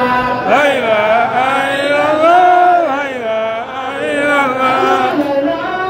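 Islamic devotional chanting: a voice chanting in long, held notes that glide up and down, the longest held about halfway through.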